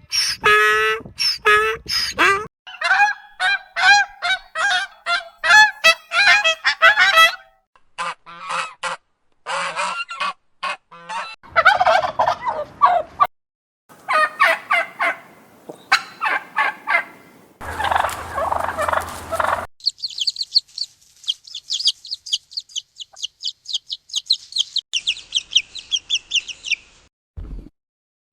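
A run of different animal calls, one kind after another: repeated pitched honking calls at first, then several bursts of harsher calls, and in the last third a long run of rapid, high-pitched chirps.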